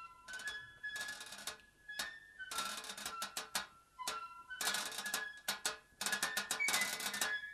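Instrumental background music: a high melody of short single notes over a clicking percussion rhythm.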